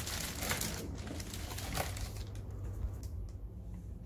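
Plastic packaging bags crinkling faintly as they are handled, with a few light crackles in the first two seconds and then quieter.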